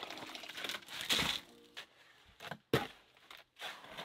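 Steel shovel working gravelly soil in a wheelbarrow: a few crunching scoops and scrapes, with one sharp knock about two-thirds of the way in.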